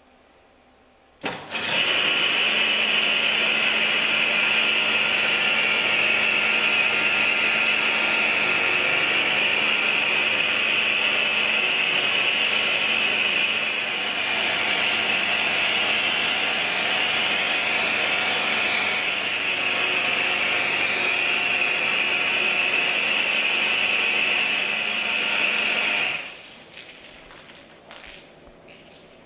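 Very-high-pressure washer jet from a Multicleaner 7 cleaning robot spraying, a loud steady hiss with a faint low hum underneath. It starts suddenly about a second in and shuts off near the end.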